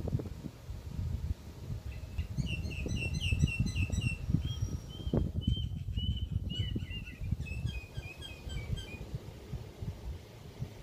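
A small bird chirping in quick runs of short high notes, about three or four a second, with a brief pause in the middle, over a steady low rumble of wind buffeting the microphone.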